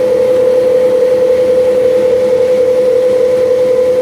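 Electric food grinder running steadily as it grinds food, giving a constant hum on one strong pitch.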